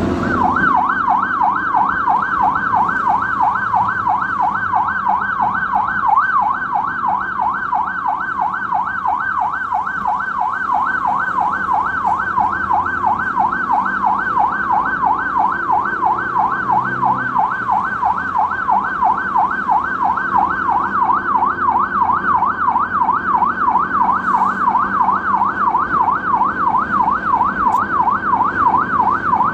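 Ambulance siren in a fast yelp, its pitch swinging up and down about three times a second, over a vehicle's low engine and road noise.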